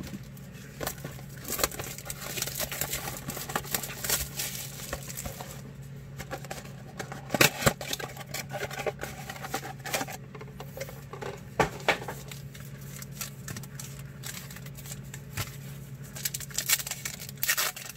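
Trading-card blaster box and foil packs being torn open: crinkling wrapper, tearing, and cards shuffled and flicked by hand, with a few sharper clicks. A low steady hum runs underneath.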